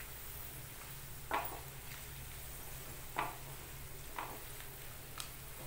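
Wooden spatula stirring diced carrots and green beans frying in ghee in a non-stick pan: a faint sizzle with four short scrapes or knocks of the spatula on the pan, over a steady low hum.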